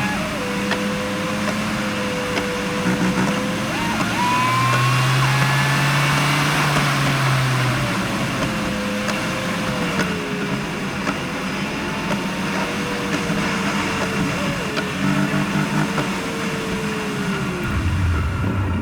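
Car engines running steadily with a slowly wandering pitch, with faint voices behind.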